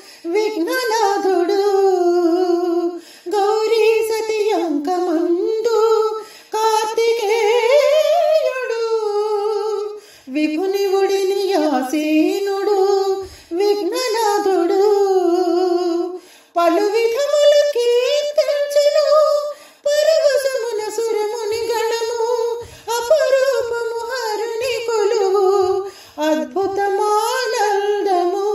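A woman singing a Shiva devotional hymn (stuti) unaccompanied, in long ornamented phrases that glide up and down in pitch, with short pauses for breath between them.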